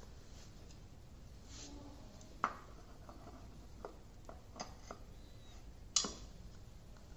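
Metal parts of a Daikin scroll compressor being fitted by hand into its steel shell: a few scattered clicks and light knocks, one about two and a half seconds in and the sharpest about six seconds in.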